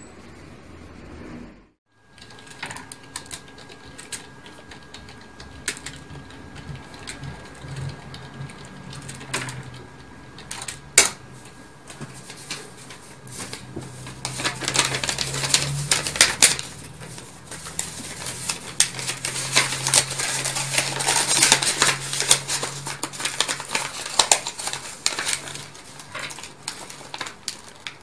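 Sheet of paper being handled at a desk: a run of sharp crackling clicks and rustles, sparse at first with one loud click, then dense and louder from about halfway through, over a low steady hum.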